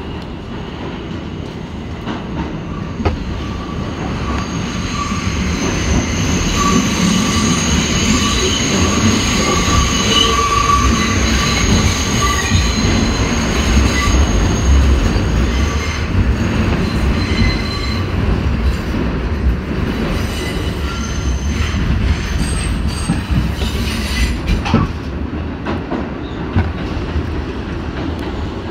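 A 1984 Kawasaki R62 New York subway car running through a tunnel, heard from on board. The rumble of the wheels on the rails grows louder over the first few seconds as the train leaves the station and then holds steady. A high, steady wheel squeal sounds through the middle stretch, with a few sharp clicks over rail joints.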